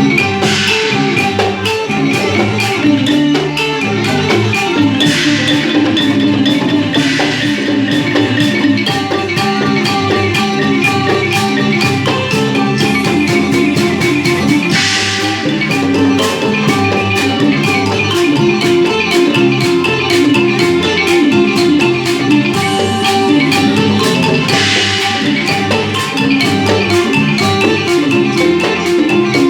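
Northeastern Thai (Isan) folk dance music led by a ponglang log xylophone with drum and percussion, playing continuously at a steady tempo. Short bright hissing swells rise above it a few times.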